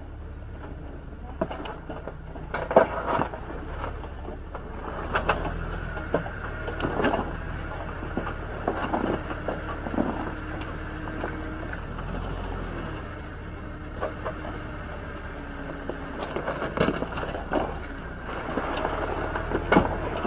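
Jeep Wrangler Rubicon engine running low and steady while the truck crawls over rock, with scattered crunches and knocks of tires and underbody on stone.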